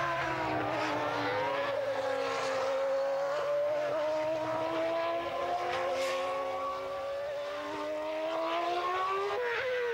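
Williams FW16 Formula One car's Renault V10 engine running at speed. The engine note dips just after the start, then climbs slowly and steadily through a long pull, with a quick dip in pitch near the end.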